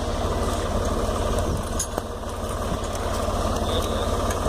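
Tractor engine running steadily at a low, even pulse, with scattered light clicks over it.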